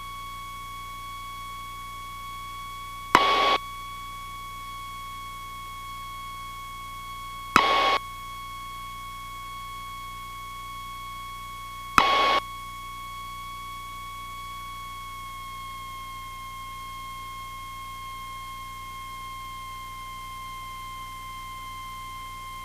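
Electrical whine in the cockpit audio feed: a steady high tone with overtones, dipping slightly in pitch about fifteen seconds in, where the recorded audio has dropped out. Three short bursts of hiss, each opening with a click, break in about four seconds apart.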